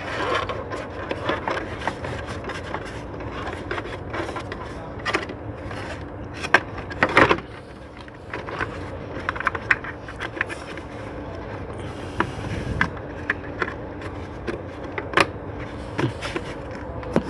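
Plastic engine cover being fitted back over the engine by hand: scrapes, rubs and a run of irregular clicks and knocks as it is pushed into place, with a few louder knocks about 7 s in and again near 15 s, over a steady low hum.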